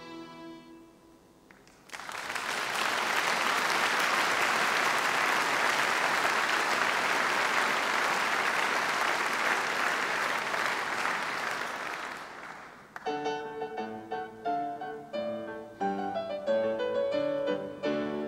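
The children's violin ensemble's last note fades away, then the audience applauds for about ten seconds. The applause dies down and the next piece starts with a run of short, separate notes.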